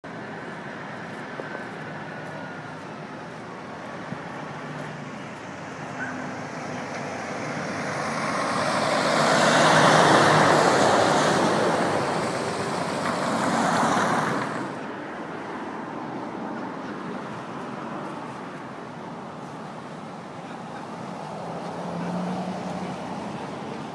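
Road traffic on a city street: a steady rumble of passing vehicles, with a car passing close and loud that swells from about eight seconds in, peaks near ten and again near fourteen seconds, then fades back to the steady traffic.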